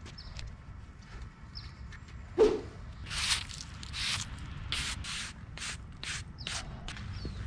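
A single thump, then rhythmic scrubbing strokes across a concrete curb, about two a second, as the surface is cleaned before stencilling.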